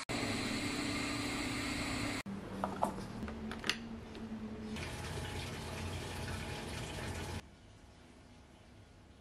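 Steady rushing hiss from an electric pressure rice cooker, with a few sharp clicks about three seconds in as a hand handles the cooker. The noise drops away to a low background near the end.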